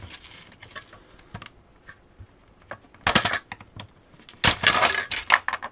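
Flat-blade screwdriver prying at the snap-fit tabs of the Dyson V8 battery pack's plastic cell holder: scattered light clicks, then two bursts of plastic clicking and cracking, about three seconds in and again about four and a half seconds in.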